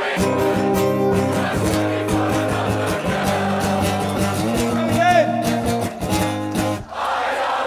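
Acoustic guitar strummed hard in a steady rhythm, playing an instrumental break in a live solo song. About seven seconds in the strumming stops and audience voices carry on.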